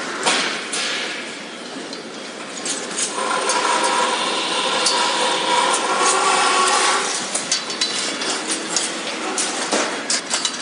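Metal clicks and knocks of a steel gate clamp being fitted and tightened around galvanized chain link gate posts. A steady pitched hum comes in for a few seconds in the middle.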